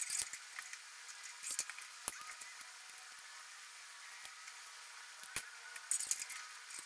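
Scattered light clicks and taps of a hard steel brake line being handled and pressed into place along a truck frame, with a short scraping rustle about six seconds in.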